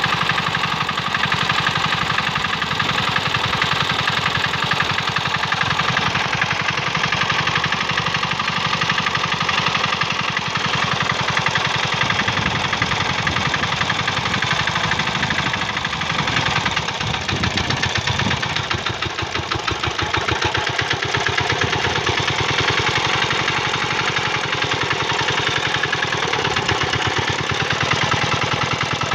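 Small single-cylinder diesel engine of a two-wheel hand tractor running steadily with a rapid clattering knock, easing a little for a few seconds just past halfway before settling back.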